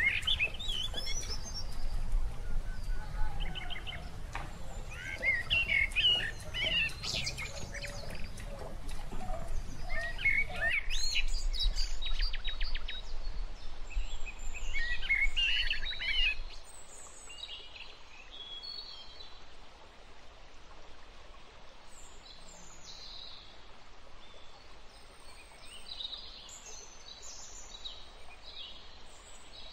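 Several birds singing and chirping, with short trills and calls. Underneath is a low background rumble that falls away a little over halfway through.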